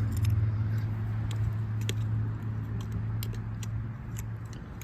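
Hand digging in a privy pit: scattered sharp clinks and ticks of a scraper against broken glass and bottles in the dirt. A steady low engine hum runs underneath and fades near the end.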